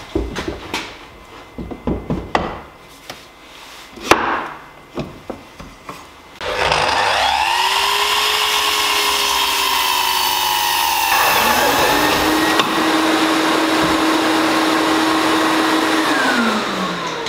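Festool Kapex KS 120 sliding mitre saw: after a few seconds of scattered clicks, the motor starts about six seconds in and runs steadily as the blade cuts through an ash slab, its pitch shifting partway through. Near the end it is switched off and the blade winds down with a falling whine.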